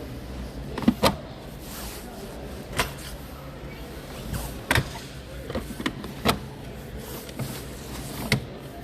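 A handful of sharp, irregular clicks and knocks over a steady low background hum.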